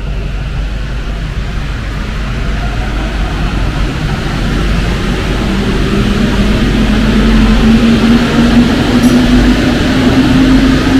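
Alstom MP-05 rubber-tyred metro train running, with a steady rumble and hiss; about halfway through a whine sets in and slowly rises in pitch as the sound grows louder, as the train picks up speed.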